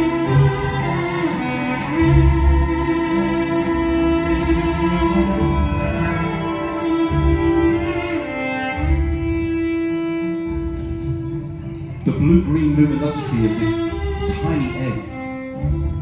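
Live instrumental music: a bowed cello holds long sustained notes over a low drone, turning to busier sliding phrases about three-quarters of the way through.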